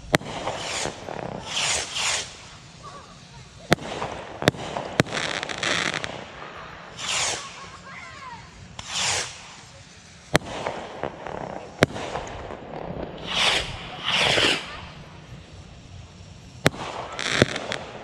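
Bottle rockets firing one after another: short hissing whooshes as they fly, with sharp cracks from their reports at irregular intervals, about eight over the stretch.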